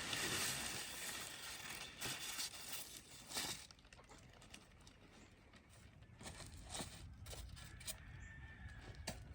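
Packaging crinkling and rustling as coop parts are unpacked, for the first few seconds, then a few faint scattered clicks.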